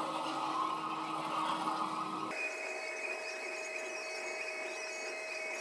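Sur Ron electric dirt bike's motor whining steadily while riding, its pitch jumping higher a little over two seconds in.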